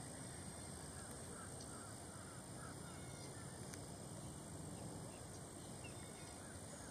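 Quiet outdoor wetland ambience: a steady low hiss with a short run of faint, distant bird calls in the first half.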